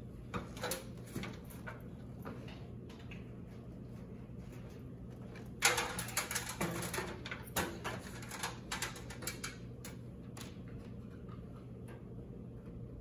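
Scattered light clicks, taps and rustles of handling a small plastic security camera and its cable while mounting it overhead, with a louder flurry about six seconds in, over a steady low hum.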